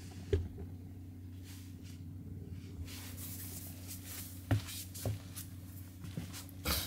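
A few soft bumps and brushing sounds, like a hand stroking a cat's fur, over a steady low hum.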